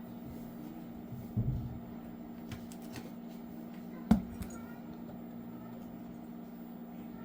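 Handling noises over a steady low electrical hum: a soft bump about a second and a half in, and a sharp click about four seconds in.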